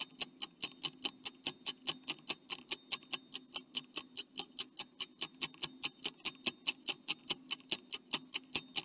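Countdown-timer sound effect of a clock ticking fast and evenly, about five ticks a second, while the quiz answer timer runs.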